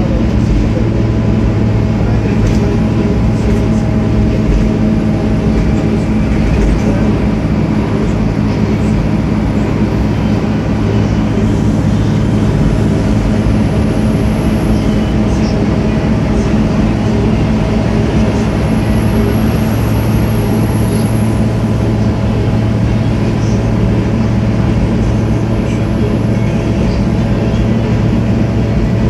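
Cabin noise on board a 2008 ADL Enviro 300 single-deck bus with a ZF Ecomat automatic gearbox: the engine and drivetrain drone steadily at a constant pitch as the bus cruises, under road and body noise. A faint high whine rises and falls briefly twice near the middle.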